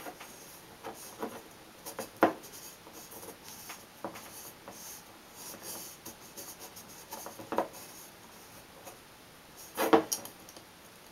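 Fingers handling a stemless wine glass and rubbing fiberglass drywall mesh tape down onto it, with scattered light scratches and taps. The loudest is a sharper knock of the glass near the end, with another about two seconds in.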